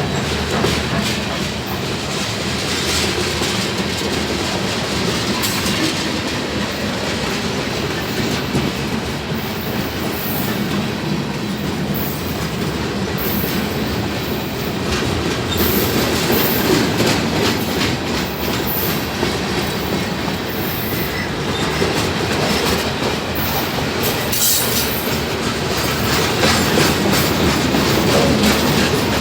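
Freight train rolling past at close range: a steady rumble of its wheels on the rails, with a continuous run of clicks from the wheels passing over rail joints.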